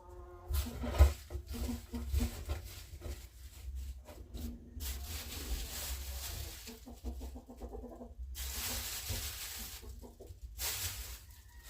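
Chickens clucking, short pitched calls mixed with stretches of rustling and low thumps.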